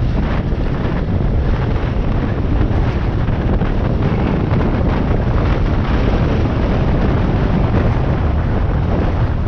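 Off-road motorbike riding along a rough dirt track, its engine sound buried under loud, steady wind buffeting on the microphone.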